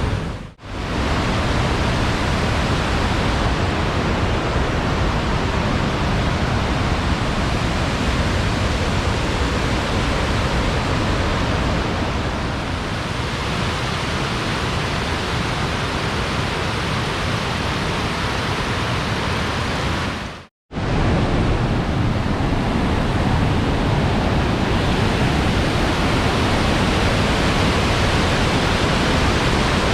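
Flood-swollen river rushing, a steady, loud wash of water noise. It drops out briefly about half a second in and again about twenty seconds in.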